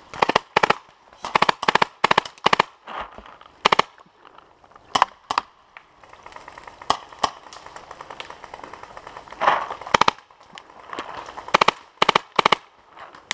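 Tippmann X7 Phenom paintball marker firing about a dozen short strings of two to five quick shots, with pauses between.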